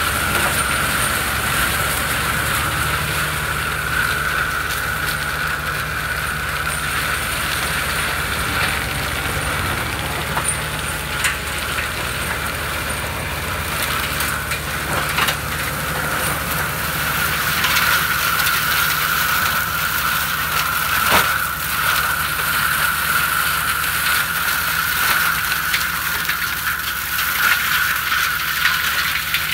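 Fendt 936 tractor's six-cylinder diesel engine running steadily under load while an FAE forestry mulcher's rotor spins with a steady high whine, shredding brush with scattered sharp cracks and snaps of wood.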